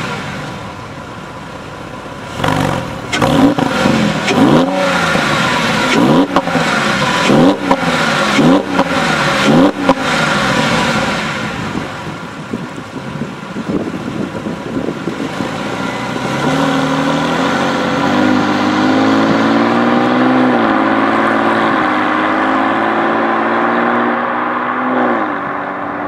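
Porsche 996 Carrera flat-six through a 2.5-inch B&B cat-back exhaust, idling and then blipped through about six quick revs with sharp cracks between them. It then pulls away and accelerates, rising in pitch with a gear change partway through.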